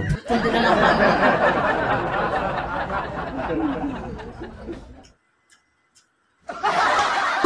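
Laughter that fades out about five seconds in, then a break of total silence before laughter starts again near the end.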